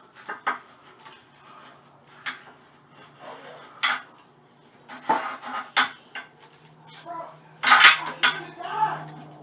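Sharp clinks, knocks and scrapes of hand tools and hard plumbing parts being handled while working on a toilet's water supply and valve fittings, loudest about eight seconds in. A low steady hum comes in near the end.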